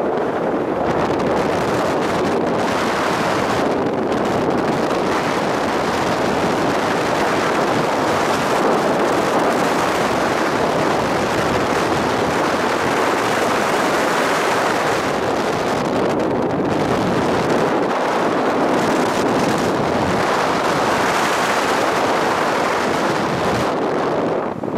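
Steady wind rushing over the microphone of a camera riding on a moving Suzuki Raider R150 motorcycle, with the bike's road and engine noise underneath.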